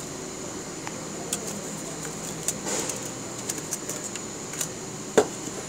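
Small clicks and scrapes of plastic as a Panasonic VF200 inverter's control card is worked loose from its housing by hand, with a brief rustle about halfway and one sharp click near the end, over a steady hiss with a faint high whine.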